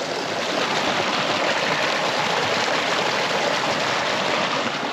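A flowing creek, a steady, even rush of running water.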